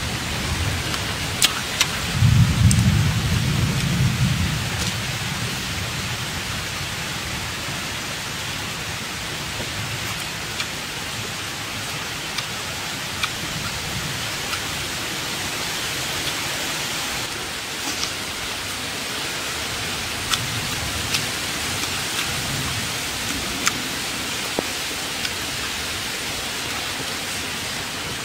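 Steady rushing of a shallow rocky stream, an even hiss throughout. A low rumble swells about two seconds in and fades by five, and small sharp clicks come now and then.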